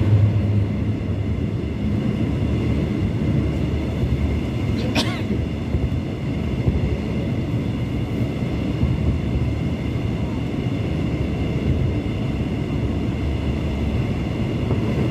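Busan Metro Line 1 subway train running at speed through a tunnel: a steady low rumble of wheels on rail with a faint high whine over it. A single sharp click about five seconds in.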